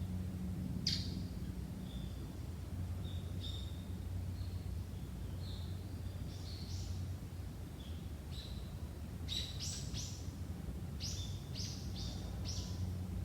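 Small birds calling: short high chirps and quick downward-sweeping notes scattered throughout, bunching into a run of rapid sweeps in the last few seconds. A steady low hum runs underneath.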